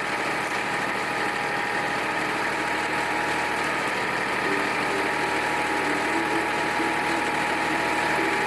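Massey Ferguson 2605 tractor's diesel engine running steadily at idle, with an even low pulsing and steady whining tones above it.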